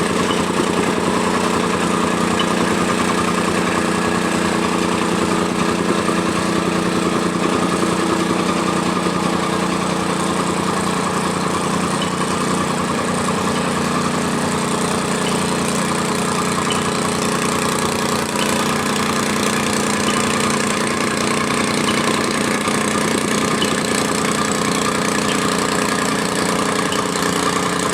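Tamping rammer (jumping-jack compactor) with its small engine running steadily while compacting fill soil.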